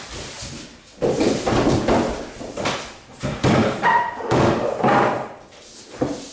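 A run of loud bangs and thumps starting about a second in, as a freestanding wooden door is banged and a wooden chair is knocked over and clatters on a tiled floor, with a brief squeak about four seconds in.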